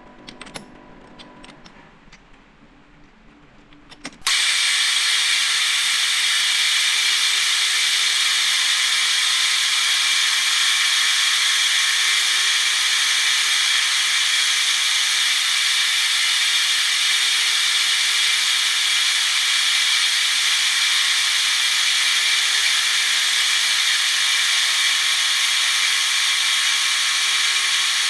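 A few light clicks, then about four seconds in a metalworking power tool starts abruptly and runs steadily with a loud, high hiss.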